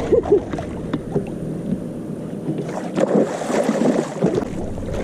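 Wind and water noise around a small fishing boat, with short muffled voice sounds near the start.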